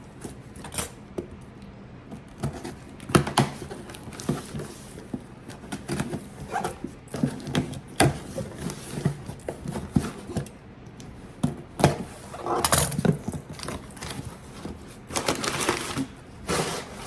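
A cardboard shipping box being opened and its packaging handled: scattered clicks, knocks and short bursts of rustling and crinkling.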